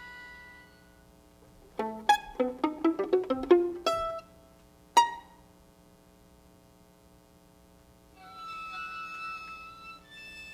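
Live string quartet music: a held bowed chord fades, then a quick flurry of plucked pizzicato notes about two seconds in and a single sharp pluck near five seconds. After a pause, high sustained bowed violin notes come in near the end.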